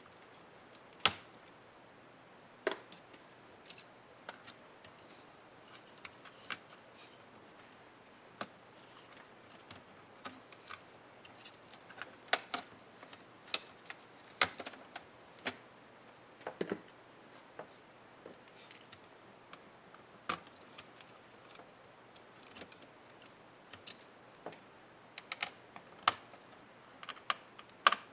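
Irregular clicks and light taps of plastic and metal parts as a Dell Inspiron 15 7537 laptop is taken apart by hand.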